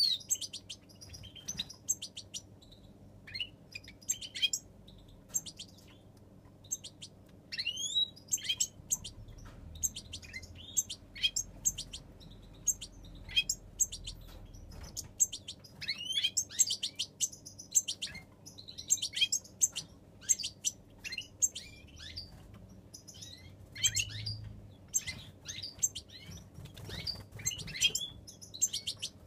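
European goldfinches chirping and twittering: short, high, quick calls in scattered bursts, with a brief lull about five seconds in.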